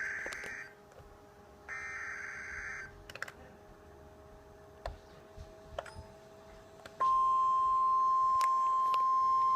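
Emergency Alert System tornado warning opening: two short bursts of screechy digital data tones, the header that codes the alert, then a lull with faint clicks. About seven seconds in, a loud, steady, single-pitched attention tone starts, heard through a small speaker.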